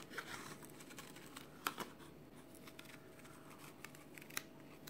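Faint snips and clicks of steel scissors cutting thin cardboard, with one sharper snip in the middle and another near the end.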